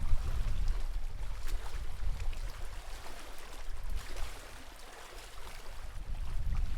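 Lake water lapping and splashing, with gusts of wind buffeting the microphone; the wind eases about four seconds in and picks up again near the end.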